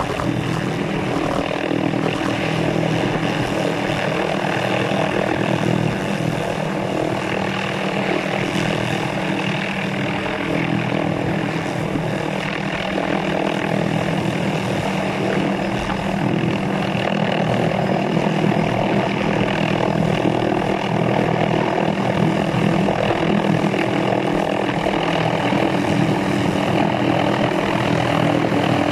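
Hughes 369D helicopter hovering overhead, the steady beat of its main rotor over the whine of its Allison 250 turboshaft turbine. It grows a little louder near the end as the helicopter comes lower and closer.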